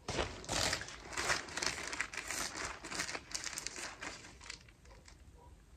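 Packaging crinkling and rustling as items are handled for about four and a half seconds, then dying down.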